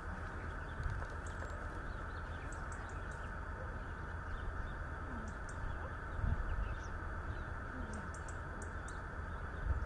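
Steady outdoor rumble of wind on the microphone, with faint, short, high-pitched bird chirps scattered through it.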